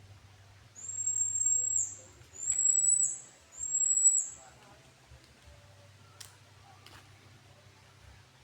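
A bird calling: three long, high whistled notes about a second each, each ending in a quick drop in pitch.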